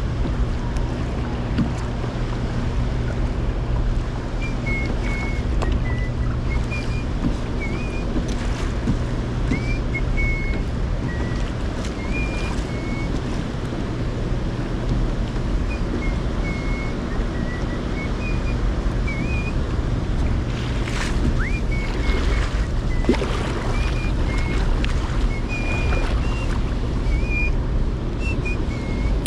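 Wind buffeting the microphone and water moving around a kayak, with a steady low hum that fades out about a quarter of the way in. Short high chirps come and go throughout.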